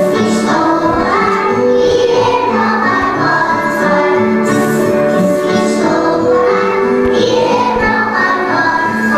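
Young children singing a song together with musical accompaniment.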